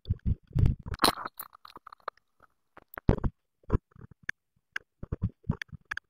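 Blue tit shuffling and scrabbling in its nest material inside a wooden nest box, close to the microphone: irregular thumps, scratches and rustles, loudest about a second in and again near three seconds.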